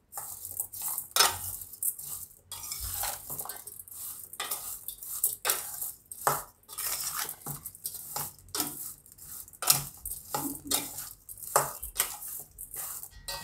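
A metal spoon stirring diced raw mango in a stainless steel bowl, with irregular clinks and scrapes of the spoon against the bowl's side.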